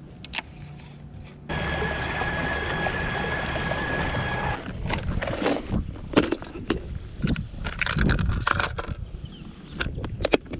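A baitcasting reel cranked steadily for about three seconds, a whirring with a thin whine that starts and stops abruptly. Then a run of sharp clicks and clatters as a hard plastic tackle box is handled and metal-bladed lures are picked from it.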